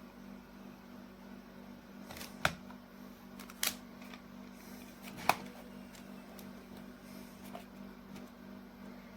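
Three sharp clicks, the last and first the loudest, spaced a second or two apart over a steady low electrical hum.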